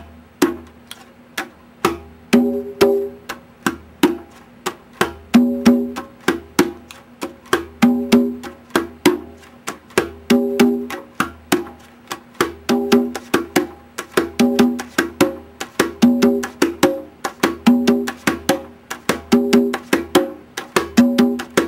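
A pair of conga drums played by hand in a steady repeating heel, finger, slap pattern, with soft heel and fingertip strokes and a double slap on the lower drum.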